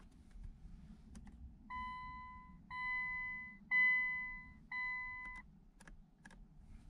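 Electronic warning chime in a Nissan Skyline R34's cabin, beeping four times about once a second. It is a steady two-tone beep over a low steady rumble, with a few sharp clicks before and after.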